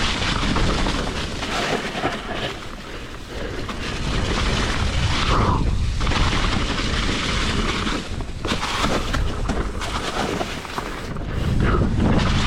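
Hardtail mountain bike running down a rough, rocky trail: wind rumbling on the microphone, with tyres and chain rattling and knocking over rocks and drops.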